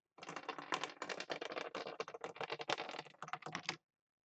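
A Plinko chip dropping down a Plinko board, clattering against the pegs in a fast, uneven run of clicks for about three and a half seconds, then stopping abruptly as it settles into a slot.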